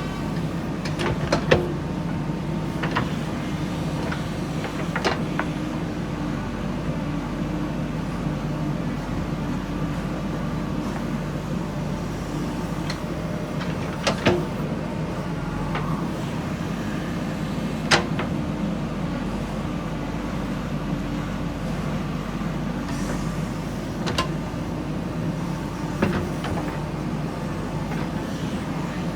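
Diesel engine of a JCB backhoe loader running steadily, with several short sharp clanks scattered through it from the loader's bucket and arm at work.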